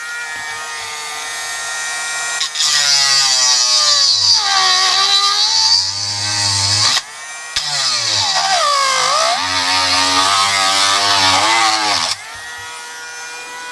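Dremel rotary tool milling away part of a Märklin E63 model locomotive chassis. It whines steadily at speed, then bites in with a louder grinding, its pitch sagging under load and recovering twice. It stops briefly about seven seconds in and runs freely again near the end.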